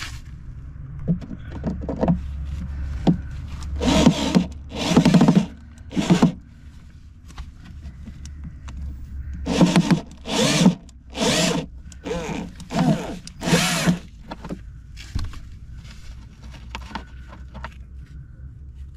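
Power drill with a screwdriver bit backing out a rusty screw, run in short trigger bursts: three bursts, then six more in quick succession.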